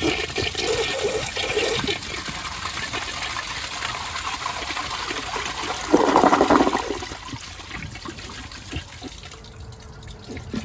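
A 1981 Briggs Abington toilet flushing with a cyclone-type flush: water rushes steadily through the bowl, a louder surge comes about six seconds in, and then the rush fades to a quieter flow near the end.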